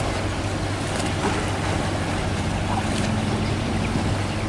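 Car ferry's engines running with its twin propellers churning the water: a steady low drone over the rush of the propeller wash as the ferry manoeuvres to line up with the landing. A second, higher engine note comes in about halfway through.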